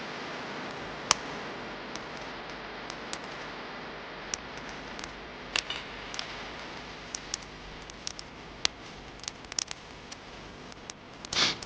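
Steady hiss with scattered sharp ticks and clicks, a louder click cluster near the end.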